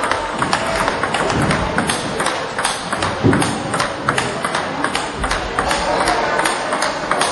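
Table tennis ball clicking off rubber paddles and the table in fast rallies, several sharp clicks a second.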